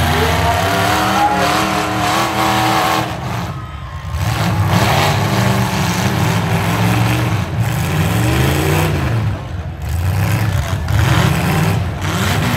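Demolition-derby pickup truck engines revving, their pitch climbing and falling again and again.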